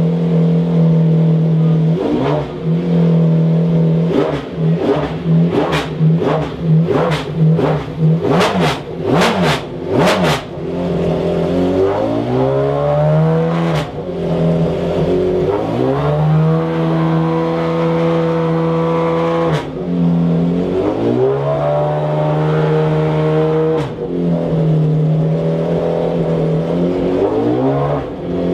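McLaren F1 GTR Longtail's BMW V12 race engine being revved while stationary. A run of sharp cracks comes between about four and ten seconds in. Then the revs rise, are held high for a few seconds and drop back, twice, before climbing again near the end.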